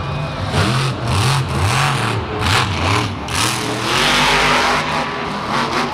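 Monster truck's supercharged V8 revving in quick throttle blips, its pitch swooping up and down two or three times a second. Around four seconds in it holds a longer burst at full throttle.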